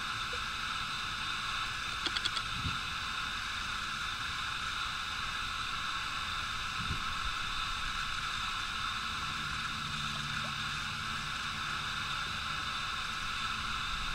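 Steady hiss of open-air ambience. About two seconds in there is a brief run of rapid ticking from a spinning reel being cranked while a hooked largemouth bass is reeled in.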